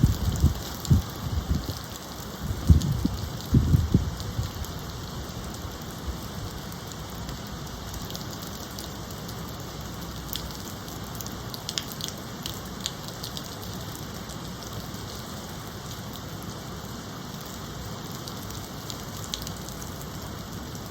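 Steady, heavy rain falling, with a few low gusts of wind in the first four seconds and scattered sharp drips close by.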